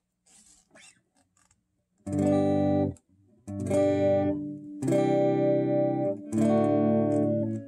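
Mustang electric guitar with two P90 pickups strummed through channel two of a Peavey XR 680C PA/mixer amp into a 30-watt speaker: four chords, each left to ring about a second. A few faint clicks of the guitar cable being plugged into the input jack come before the first chord.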